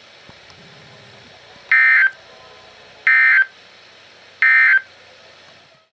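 Three short bursts of warbling SAME digital data tones from a NOAA Weather Radio broadcast on 162.450 MHz, each about a third of a second long and about 1.4 s apart. They are the end-of-message code that closes the required weekly test. Faint receiver hiss runs between the bursts.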